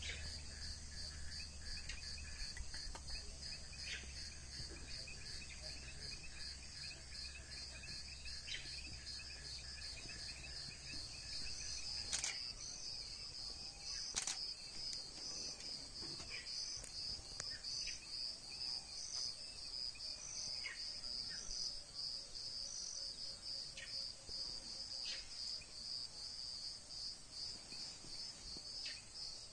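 Steady high-pitched chorus of crickets, pulsing evenly, with two sharp clicks about 12 and 14 seconds in.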